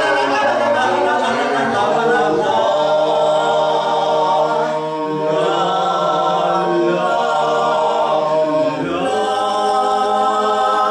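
Three male voices singing a cappella in close harmony, holding long drawn-out notes of a traditional Tuscan song, moving to a new held chord about nine seconds in: the song's closing cadence.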